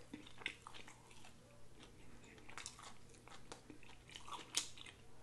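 A person chewing a mouthful of food, with faint, irregular mouth clicks and smacks.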